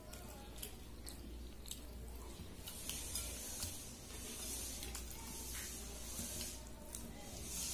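Fingers squishing and mixing soaked rice in water in a bowl: soft wet squelching, with a few small clicks in the first two seconds, and chewing.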